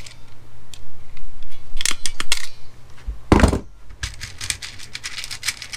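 Hand tools and wire being handled on a desk: a few sharp clicks about two seconds in, one louder thunk about three and a half seconds in, then a run of quick light clicks.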